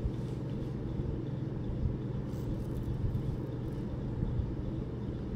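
Steady low background rumble, the kind a room's hum or distant traffic makes.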